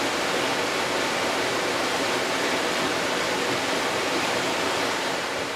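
A steady, even hiss of background noise with no distinct knocks or clicks.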